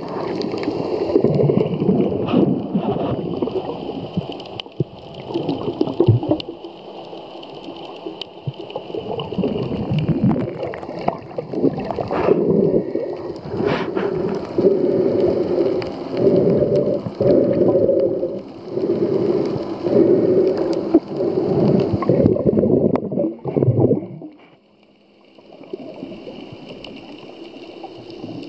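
Muffled water sloshing and gurgling heard by a camera held underwater, with a low humming drone that swells and fades. The sound dips away briefly near the end.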